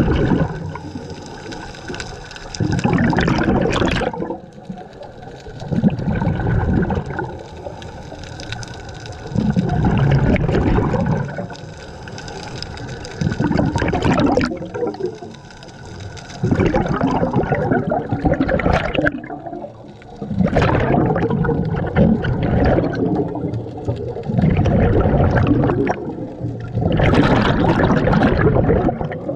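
Scuba regulator underwater: bursts of exhaled bubbles gurgling past the microphone about every three to four seconds, quieter between breaths.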